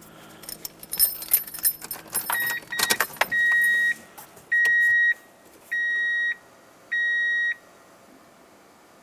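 Keys jangling and clicking, then the truck's electronic warning chime beeping steadily: two short beeps, then four longer ones about a second apart.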